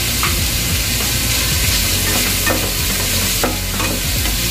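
Chopped onions sizzling in hot oil in a pan while a wooden spatula stirs them, with a few short scrapes of the spatula against the pan about halfway through.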